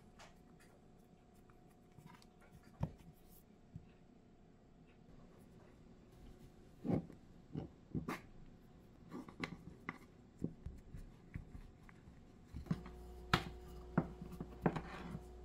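Faint handling of soft dough on a wooden cutting board: scattered light knocks and taps of hands, a knife and a wooden rolling pin against the board, closer together in the second half. A low hum comes in near the end.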